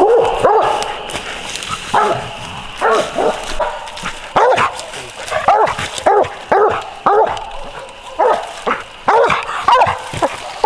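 A squirrel dog barking treed: a string of sharp barks, roughly one or two a second and unevenly spaced, the sign that the dog has a squirrel up a tree.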